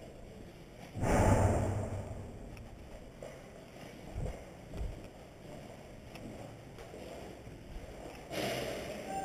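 Movement in an empty building: a couple of footstep thumps and rustling of clothing and gear close to the microphone. A loud rush of rubbing noise comes about a second in and fades, and a second, weaker one comes near the end.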